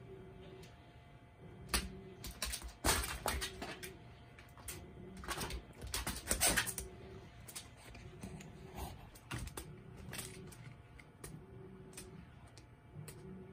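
A small dog playing with a rubber ball on a hard floor: quick clatters of claws and paws tapping and scrabbling, with the ball knocking and rolling. The clicks come in bursts, busiest about three seconds in and again around six to seven seconds.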